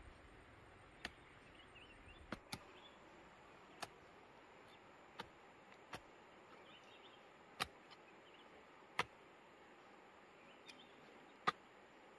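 A hand tool's blade chopping into dry soil: about nine sharp strikes at irregular spacing, a second or more apart, the loudest near the end.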